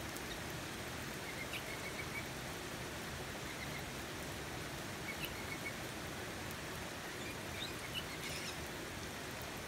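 Steady rain falling on a wet timber deck, with a few faint, short, high bird chirps in the background.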